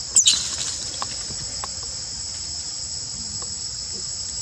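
Steady high-pitched drone of insects in the forest. About a quarter second in there is a brief, loud, sharp sound, followed later by a few faint ticks.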